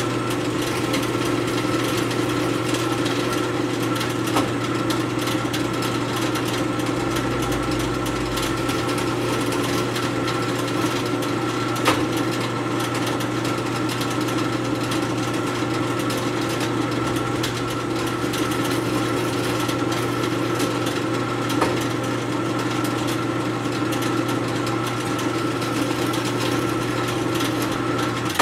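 1960s Delta Rockwell floor drill press running steadily with a constant motor hum while its bit bores tuner holes in a wooden headstock, with a few sharp clicks along the way. A little rattle comes from a cover on the head, not from the bearings. The motor cuts off at the end.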